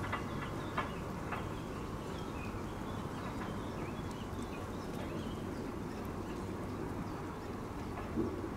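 Steady low background rumble with faint, scattered chirps of distant birds, three short clicks in the first second and a half, and a soft thump near the end.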